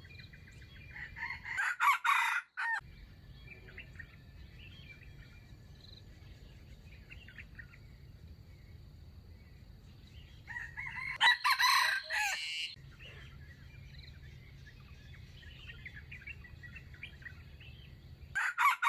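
Rooster crowing three times, each crow lasting a second or two and spaced about eight seconds apart, the last one right at the end. Faint clucking and chirping can be heard between the crows.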